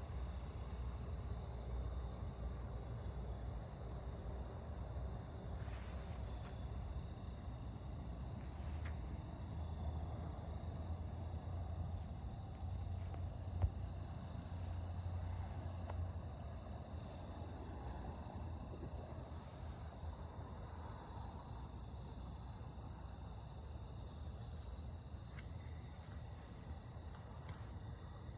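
Crickets chirping in a steady, unbroken high-pitched chorus over a low rumble, with one sharp click about halfway through.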